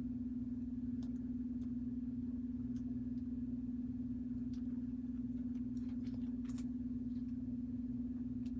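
A steady low electrical hum, with faint scattered clicks and scrapes of a trading card being worked into a tight plastic sleeve.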